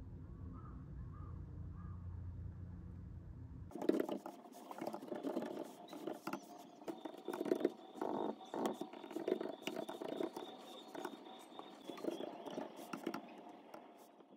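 A cat purring, a steady low rumble that stops abruptly about four seconds in. Then a laptop keyboard being typed on, with irregular tapping keystrokes.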